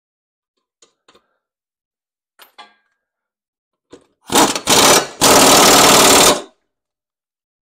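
Air impact wrench tightening the bolt of a new mower blade onto the deck spindle: a few short bursts of rapid hammering about four seconds in, then a longer burst of about a second. Faint clinks of the blade and tool being handled come before it.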